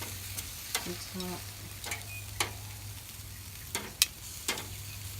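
Marinated chicken sizzling on a charcoal grill: a steady hiss with sharp pops and clicks scattered through it, about seven in all.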